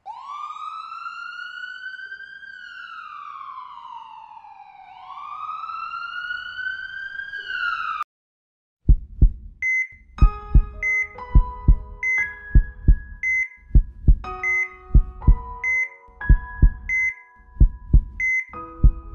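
A siren wails, rising and falling twice, for about eight seconds and stops. After a short silence a heartbeat sound thumps steadily, with a short electronic beep keeping time and held musical notes underneath.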